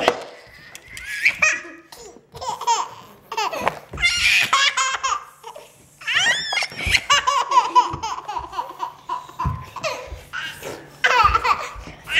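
A toddler laughing hard in several bouts, with short pauses between them.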